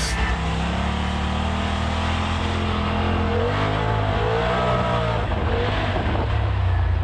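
Polaris RZR Turbo side-by-side's engine running steadily while driving a dirt trail, with a few short rising-and-falling whines in the middle.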